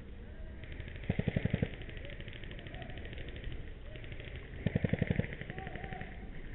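Airsoft electric guns firing on full auto: a short rapid burst about a second in and another near five seconds, with fainter fast rattling of more distant fire in between.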